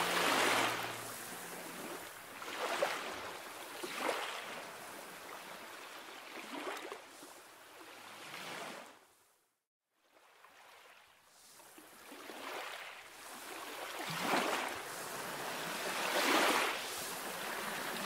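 Sea waves washing and breaking on a rocky shore, each surge swelling and falling back every couple of seconds. The sound fades out to silence about halfway through, then the surf returns and builds again.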